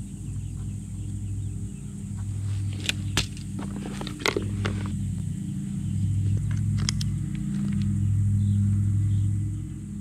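A steady low mechanical hum runs throughout, with a few sharp clicks and light clatter of hand tools being handled, including a drill bit taken from its case.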